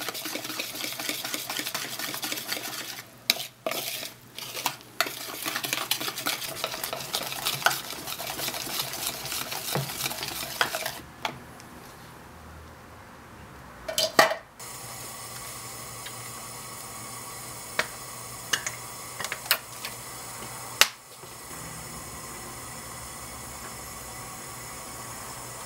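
Wire whisk beating pancake batter in a plastic bowl: fast, dense scraping and clicking for roughly the first half, then a sharp tap. After that a steady hiss with a few scattered clicks.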